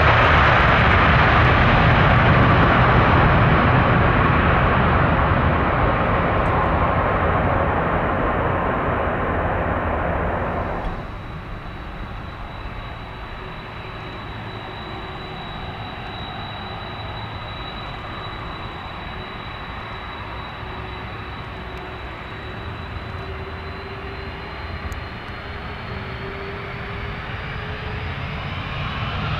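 Jet airliner engines: a loud rushing roar that slowly fades, then, after a sudden drop about eleven seconds in, a quieter jet noise with a steady high whine. Near the end the engine tones rise in pitch.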